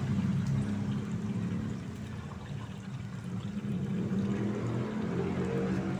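A low, steady engine hum from road traffic, easing off in the middle and coming back about four seconds in, over broth bubbling in a pan of chicken on a wood fire.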